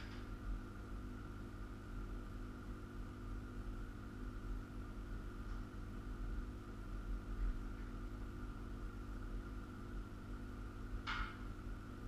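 Steady low electrical hum with a faint high whine, and one short scrape of metal being handled about eleven seconds in, as a steel sawmill frame is bolted together.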